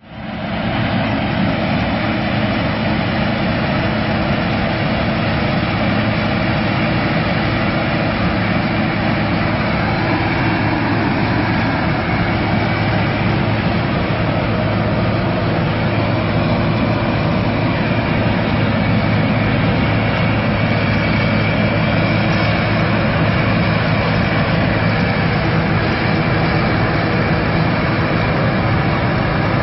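Combine harvester running steadily: a constant low engine hum under a broad mechanical rush, unchanging throughout.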